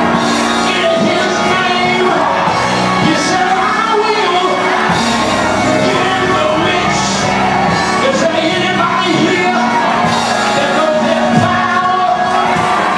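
Gospel church music in a large hall: voices singing over a sustained instrumental backing, with shouts and whoops from the congregation.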